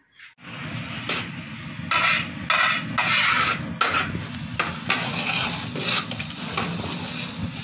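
A metal ladle stirring chana daal in a metal cooking pot, scraping and clinking against the pot in uneven strokes, loudest about two to three seconds in, over a steady hiss.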